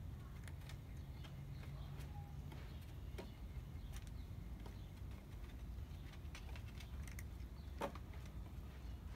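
A cat eating from a plastic food dish: faint, irregular crunching clicks of chewing, with one louder click near the end, over a low steady background rumble.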